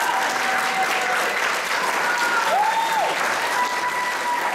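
Audience applauding steadily, with a few faint held tones over the clapping.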